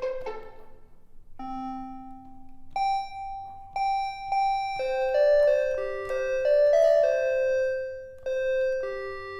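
EASYPLAY 1s keyboard playing one of its built-in sound samples, a bell-like chime tone: single struck notes that ring and fade, forming a slow melody from about a second and a half in, with notes overlapping near the middle. Just before it, a plucked-string sample dies away.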